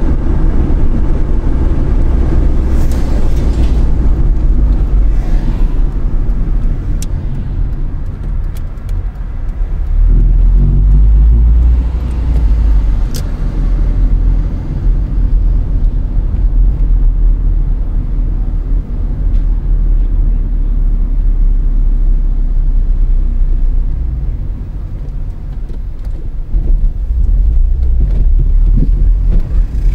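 Inside a moving car: a steady low rumble of engine and tyre noise that eases off twice and swells again as the car slows and pulls away, with a few faint clicks.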